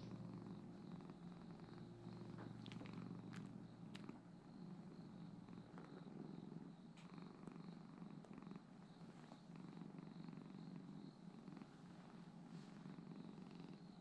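Domestic cat purring steadily, a soft low rumble, with a few faint clicks a few seconds in.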